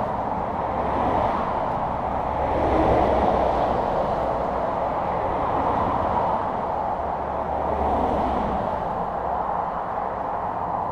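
Steady traffic noise, swelling as vehicles pass about two seconds in and again near eight seconds.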